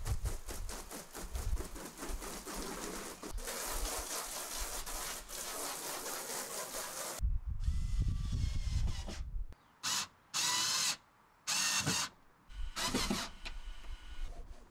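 Small cordless electric screwdriver driving screws into a storage shed's frame: one run of about two seconds, then four short bursts with pauses between them. It comes after about seven seconds of steady rushing noise.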